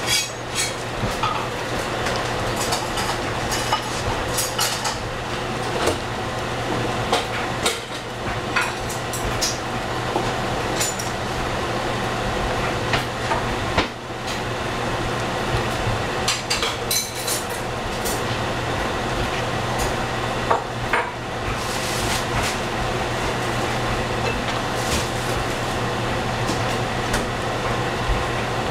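Spoons stirring a pan of seafood stew with mussels and squid, with scattered clinks and scrapes of utensil on pan and shells, which thin out in the last few seconds. A steady hiss and low hum run underneath.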